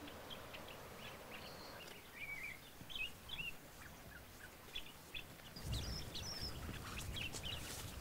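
Faint outdoor ambience with small birds chirping now and then, in short high calls. About two-thirds of the way through, a low rumble joins in.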